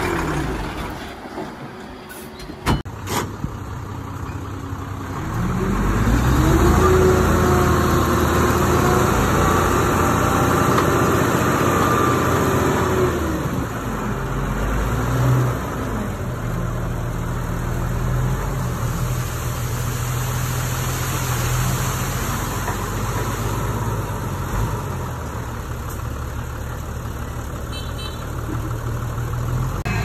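Heavy diesel engine of earthmoving machinery working: after two sharp clicks near the start it revs up about five seconds in, holds high revs for several seconds, then drops back to a steady lower run.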